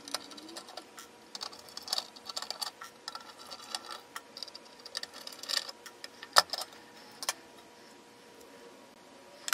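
Irregular light clicks and taps of small parts being handled as a Moog Werkstatt synthesizer is taken apart by hand: nuts and knobs worked off its circuit board and the board lifted from its case. One sharper click comes about six and a half seconds in.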